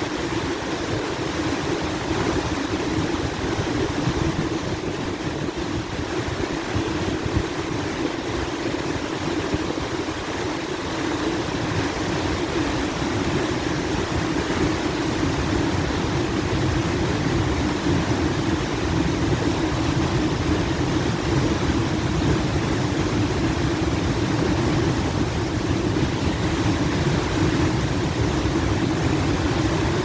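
Waterfall about 40 m high, heard close to its base: a loud, steady rush of falling water crashing into the pool.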